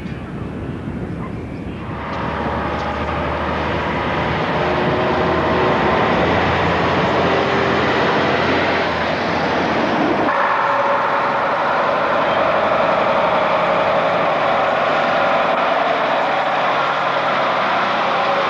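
Diesel engine of a Scania 3-series livestock lorry running as it pulls past, growing louder about two seconds in. About ten seconds in the sound changes abruptly to a different steady engine noise.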